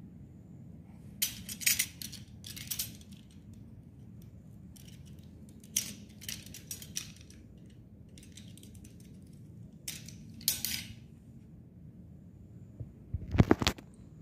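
Bursts of rustling and clicking from a UTP network cable's plastic-insulated wires being handled, untwisted and straightened by hand, with a louder clatter about thirteen seconds in.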